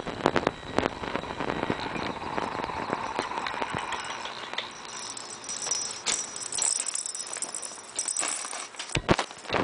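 Siamese kitten scrambling and pouncing inside a fabric cat tent: rustling, crinkling cloth with scattered quick knocks and clicks as it bats a small toy around.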